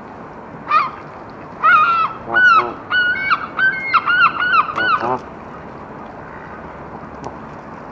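Geese honking: one call about a second in, then a quick run of repeated honks for about three seconds that stops sharply, leaving only low background hiss.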